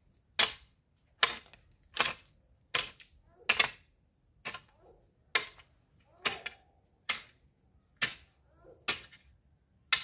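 Long-handled garden hoe chopping into soil and weeds, one sharp strike about every second, a dozen in all.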